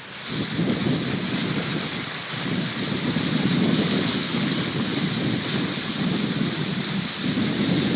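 Floodwater rushing, a steady hissing roar that builds up in the first second and then holds.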